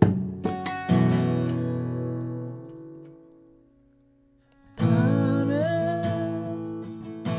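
Acoustic guitar with a capo, strummed a few times. The last chord rings and fades almost to silence, and about five seconds in the strumming starts again.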